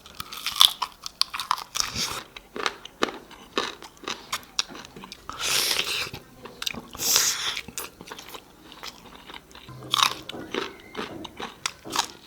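Close-miked eating sounds: a person biting and chewing crunchy food, with many sharp wet mouth clicks and a few longer noisy smacks.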